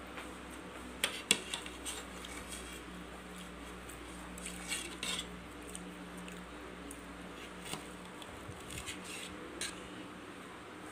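Knife and fork clicking and scraping against a plate while cutting fried beef meatballs: a few sharp clicks, the loudest about a second in, then scattered softer taps.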